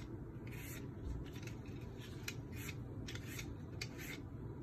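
Vegetable peeler scraping strips of skin off a whole cucumber, a series of short rasping strokes, roughly two or three a second.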